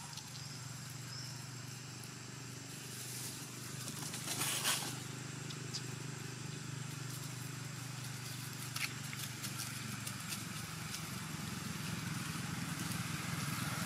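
Steady low hum of a distant engine, growing louder near the end, with a brief rustle about four and a half seconds in and a few faint clicks.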